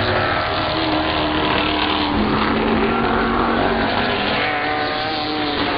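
Several street stock race cars' V8 engines running hard on track, their overlapping engine notes rising and falling as the cars go past.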